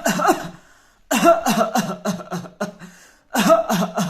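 A man's deliberately imitated coughing fit: two hard coughs, then a rapid run of short coughs at about four or five a second, and a second run starting near the end. It is the paroxysmal cough, coming in fits that leave no room for breath, which homeopaths match to the remedy Drosera.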